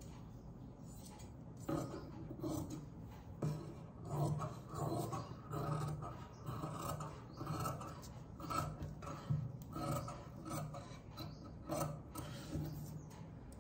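Large scissors snipping through fabric in irregular, rasping cuts along a stitched neckline, with fabric rustling as it is handled. This is the trimming of excess fabric around newly sewn piping.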